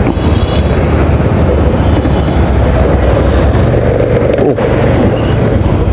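Wind buffeting the camera microphone over a steady low rumble of road traffic, as the camera moves along a street.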